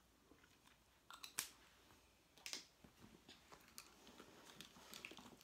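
Faint, scattered small clicks and taps as a lip balm is handled and put on, then a handbag is rummaged through.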